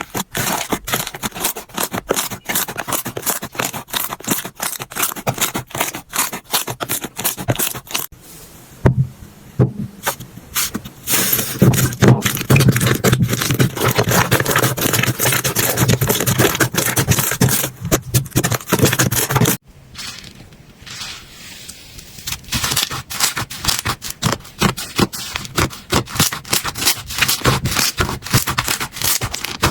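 Slime being squeezed, pressed and stretched by hand, giving dense rapid crackling and popping clicks. The sound changes abruptly a few times as one slime clip gives way to another.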